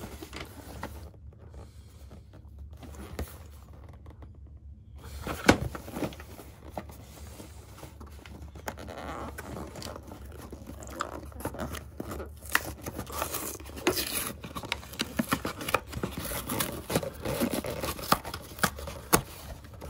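Biscuit box being opened by hand: a sharp snap about five seconds in, then a long run of tearing, crinkling and rustling as the packaging is pulled open and the pack inside is taken out.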